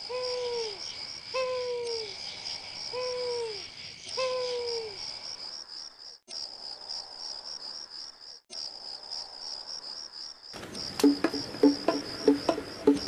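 Crickets chirping in a steady, rapid pulse of about four chirps a second, as night ambience. Four short falling calls sound in the first four seconds. About ten and a half seconds in, plucked music with a beat comes in.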